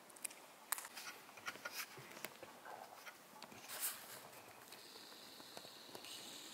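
Faint scattered clicks and crinkles of loose debris and paper being stepped on or disturbed, with a soft brushing sound about four seconds in. A faint high steady whine comes in during the last two seconds.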